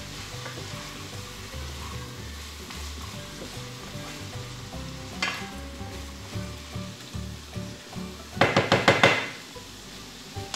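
Diced carrot and onion sizzling in sunflower oil in a frying pan as they are stirred with a wooden spatula. A single sharp knock comes about five seconds in, and a quick run of five or six louder knocks near the end.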